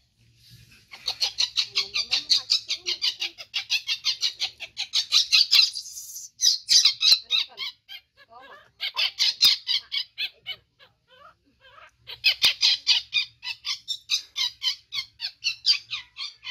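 Baby macaque calling in rapid, high-pitched squeals, about six a second, in four bouts with short breaks between them.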